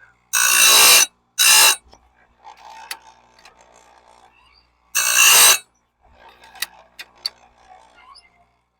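Electric chainsaw-chain sharpener's grinding wheel briefly grinding the teeth of a bandsaw blade: three short, loud grinds, with light clicks in between.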